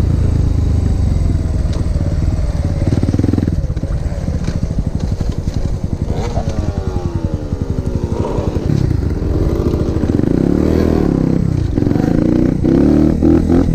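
150cc pit bike's single-cylinder engine running under way, its pitch falling as the bike slows over the first half. In the second half it revs up and down repeatedly as the throttle is worked.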